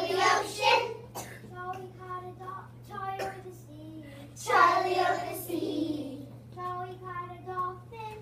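Young children singing a song together in loud group phrases, one near the start and one about halfway through, with a single voice singing held notes between them.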